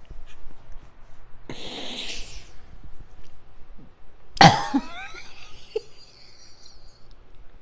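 A woman's breathy huff about a second and a half in. Then, about four and a half seconds in, a loud, sudden cough-like outburst that trails off in a falling voiced sound.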